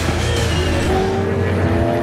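Holden Commodore Supercar's V8 engine heard from inside the cockpit, its pitch rising steadily as the car accelerates, mixed with background music.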